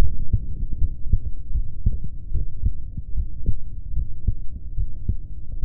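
A person's heartbeat: low, muffled thuds in a steady rhythm over a low rumbling background.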